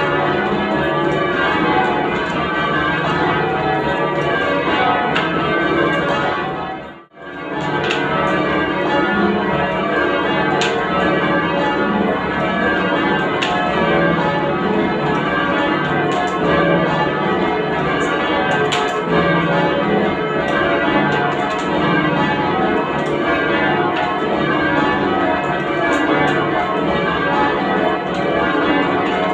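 The ten church bells of St Giles, Camberwell being change-rung, the bells striking one after another in continuous changes. The sound cuts out for a moment about seven seconds in.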